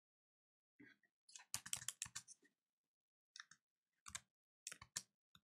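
Computer keyboard keys being pressed, faint: a quick flurry of taps about a second in, then scattered single key presses.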